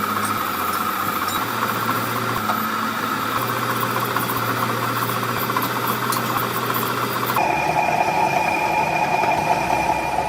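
Workshop machinery running steadily with a constant hum and whine; a little over seven seconds in, the sound changes abruptly to a different steady whine.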